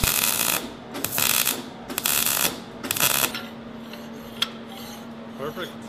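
MIG welder tacking steel holder brackets onto a steel pipe: four short welding bursts of about half a second each, about a second apart. After them a low steady hum with a few light clicks.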